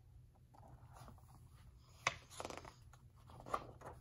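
Pages of a picture book being handled and turned: a sharp tap about two seconds in, then a short papery rustle, and another brief rustle near the end.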